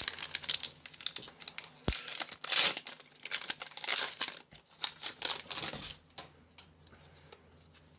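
Foil booster pack wrapper crinkling and being torn open, with rustling strokes and a single low knock about two seconds in. The crinkling dies down after about six seconds.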